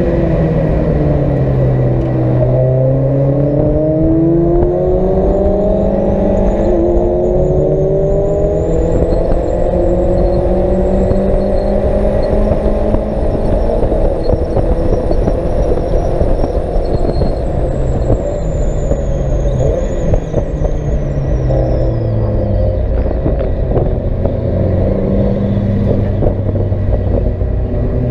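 Race car engine heard from inside the cockpit at speed, climbing in pitch through several gears. A high whine rises with speed and then falls away, and the engine pitch drops in steps later on as the car slows.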